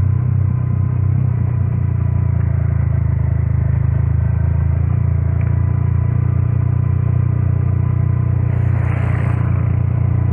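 Steady low rumble of a motorcycle ride: the engine running along at an even pace, with wind on the microphone. A short hiss breaks in about nine seconds in.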